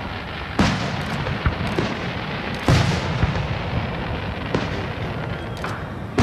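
Fireworks display: several aerial shell bursts go off as sharp booms, the loudest about two and a half seconds in, with steady crackling between them.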